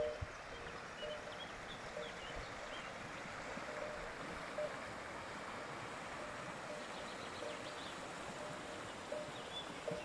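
Small mountain stream rushing steadily over rocks, with birds chirping now and then.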